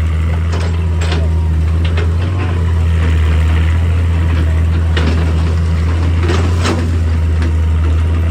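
Excavator's diesel engine running steadily with a deep drone. A few sharp knocks are heard over it: about a second in, near two seconds, around five seconds and near seven seconds.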